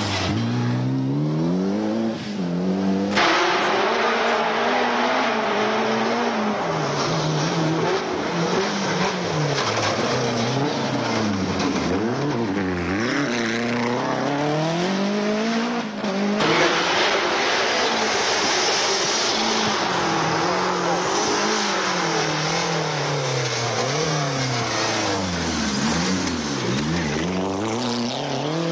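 Group A rally cars' turbocharged four-cylinder engines (Mitsubishi Galant VR-4, Toyota Celica GT-Four, Lancia Delta Integrale) revving hard on gravel. The pitch climbs and drops over and over with each gear change and lift as the cars pass one after another.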